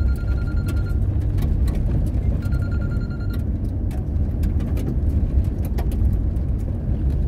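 Inside the cabin of a four-wheel drive on a gravel road: a steady low rumble of engine and tyres on gravel, with frequent small clicks and rattles of stones and loose gravel. A high steady tone sounds twice, each time for just under a second, near the start and again about halfway through.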